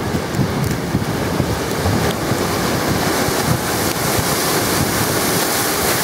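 Wind-driven storm waves on a large lake surging and crashing against a concrete seawall in a continuous roar, with wind buffeting the microphone.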